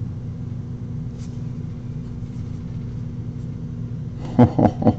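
A steady low hum of room noise, with a few sharp taps and knocks near the end as trading cards are set down and stacked on a tabletop.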